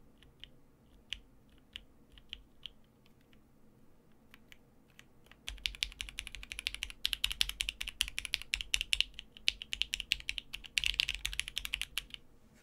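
Plateless, undampened Klippe T custom mechanical keyboard with JWK Lilac linear switches and PBT keycaps: a few scattered single keystrokes, then from about halfway through, fast continuous typing that gets densest near the end.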